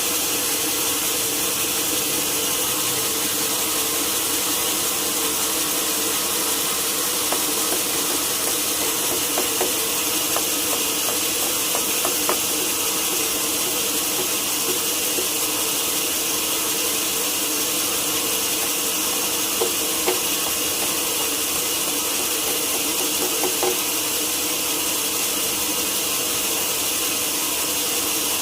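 Sawmill saw and machinery running steadily, a constant hiss and hum with a few light clicks in the middle.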